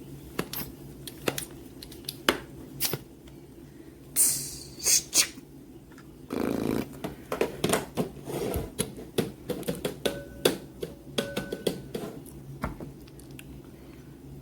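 Irregular sharp clicks and taps, clustered thickly in the middle, with a brief high hiss about four seconds in and a short rustle about six seconds in, over a faint steady low hum.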